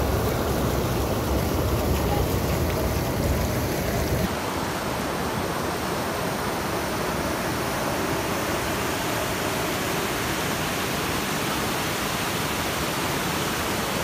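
Fast water rushing and cascading over rock ledges in a stream, a steady full white-noise roar. About four seconds in the deep low rumble drops away, leaving a lighter, hissier rush.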